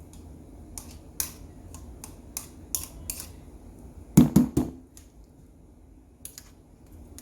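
Kitchen handling noises as a container of chili is got out: scattered light clicks and ticks, then three quick loud knocks about four seconds in, like something set down hard on a counter.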